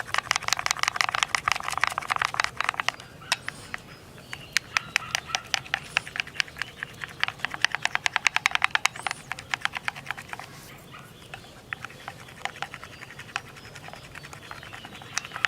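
Loaches being stirred through egg batter in a bowl: quick, even clicking and squelching strokes in two spells, then sparser clicks near the end.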